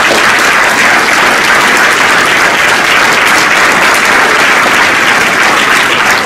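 Audience applauding, a steady, dense clapping held at an even level throughout.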